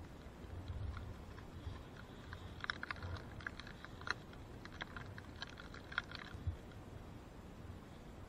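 Scattered crisp clicks and crunches of packed snow against the camera and the buried snowmobile, over a faint, uneven low rumble, with no engine note heard.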